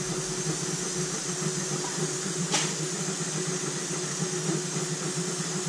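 Airbrush compressor running with a steady hum while the airbrush hisses, spraying fluorescent yellow paint onto a crankbait; a short, sharper burst of air about two and a half seconds in.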